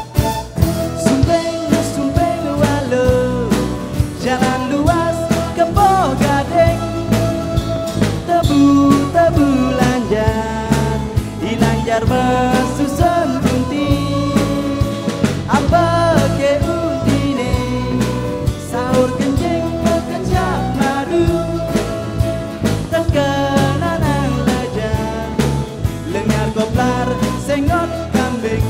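Live band playing a Balinese fusion piece: drums keeping a beat under a bass line, with a lead melody that slides and bends in pitch.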